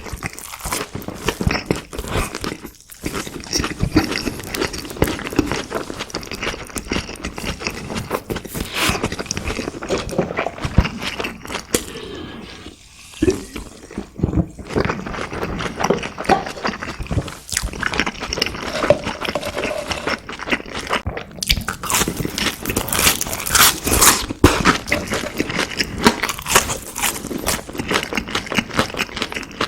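Close-miked chewing and biting of crispy fried food, with dense crackly crunches throughout and a brief lull about halfway through.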